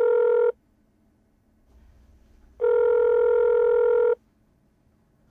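Telephone ringback tone as heard in a handset while a call rings out unanswered: a steady, flat electronic tone sounding twice, each for about a second and a half, with about two seconds of silence between them.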